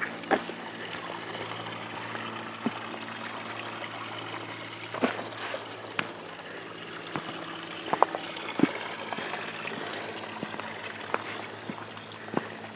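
Small spring-fed mountain brook trickling steadily over stones, with a few irregular sharp footstep clicks on the rocky path.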